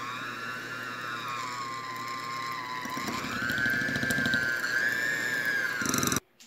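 Electric hand mixer beating a block of cream cheese in a glass bowl: a motor whine that wavers in pitch as the beaters work through the cheese, rising about halfway, with the churning getting louder. It switches off suddenly near the end, once the cheese is creamed for frosting.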